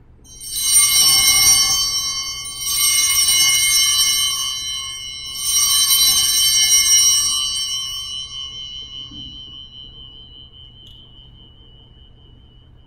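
Altar bells shaken three times, about two seconds apart, each peal a bright jangle of several high tones, the last ringing out and fading slowly. They ring at the elevation of the consecrated host at Mass.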